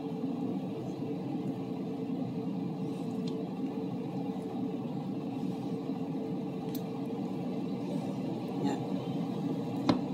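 Electric hand mixer running steadily through thick banana bread batter in a stainless steel bowl, a continuous hum with a light click or knock against the bowl near the end.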